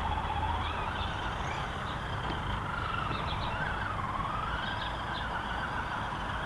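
Electric motor and gearbox of an Axial SCX10 DeadBolt RC crawler (stock 27-turn motor) whining as it is driven, the pitch rising and falling with the throttle, with scattered clicks from the truck working over rock.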